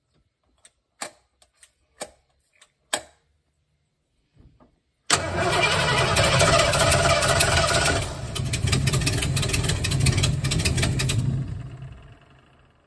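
A few sharp clicks, then the carbureted engine of a step-van food truck is turned over by the starter for about six seconds, its sound falling away near the end.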